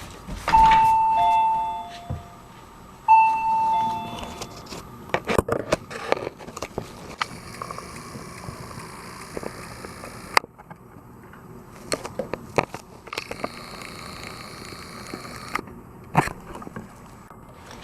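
Doorbell chime sounding a two-note ding-dong, high then low, twice about two and a half seconds apart, rung by a dog asking to be let out. Scattered clicks and knocks follow.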